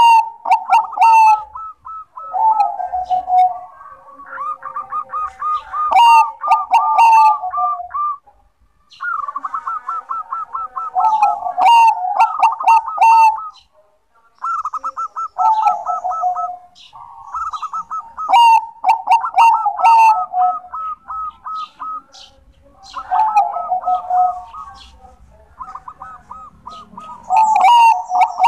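Zebra dove of the Bangkok perkutut strain singing its cooing song, a rapid run of rolling notes repeated in phrases a few seconds long with short breaks between.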